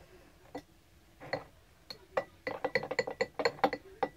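A metal utensil clinking and scraping against the inside of a drinking glass as a thick shaving-cream and toothpaste slime mixture is stirred. A few single clinks come first, then about halfway through a quick run of ringing clinks, about eight a second.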